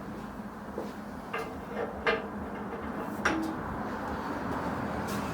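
Three or four light knocks and clinks of a small metal workpiece being handled, over a steady low hum.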